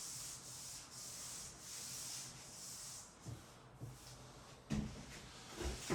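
About five even rubbing strokes across pasted wallpaper, each about half a second, as the paper is wiped down. Then a few soft knocks and a low thump near the end.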